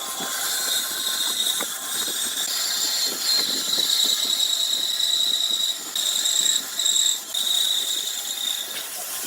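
A power tool running with a steady high-pitched whine, cutting out briefly a few times in the second half.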